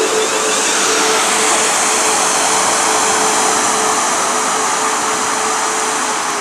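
Siemens Desiro Class 450 electric multiple unit running slowly into the platform: a steady rushing noise with a constant hum, easing off a little near the end.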